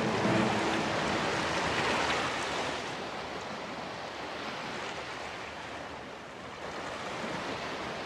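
Sea waves washing: a steady rushing noise, softer after about three seconds.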